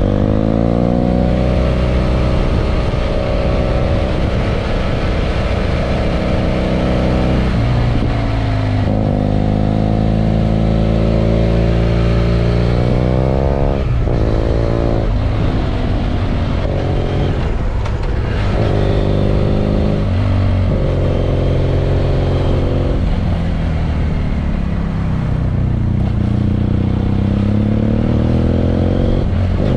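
BMW F800 GS's 798 cc parallel-twin engine, heard from on the bike while riding. The revs repeatedly climb and then drop sharply as gears change, most clearly in the middle of the stretch.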